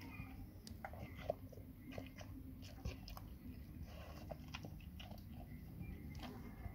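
Labrador chewing and biting at pieces of a grilled sandwich: irregular wet clicks and crunches, with a sharper click about a second in and another near three seconds.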